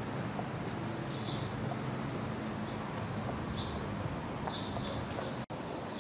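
Outdoor ambience: short bird chirps repeated every second or so over a steady low background hum, with a brief dropout about five and a half seconds in.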